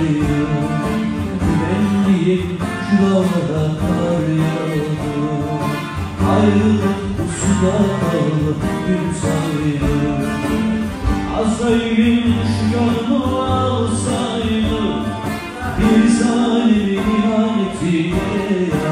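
Live Turkish folk music: bağlama (saz) and guitar playing together, plucked strings throughout.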